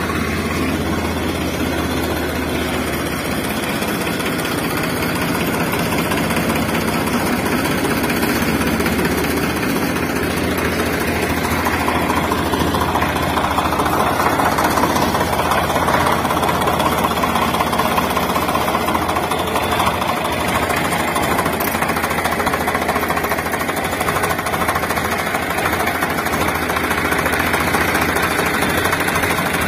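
Wired-remote toy excavator's small electric motors and plastic gearboxes buzzing and rattling steadily as the arm digs and swings.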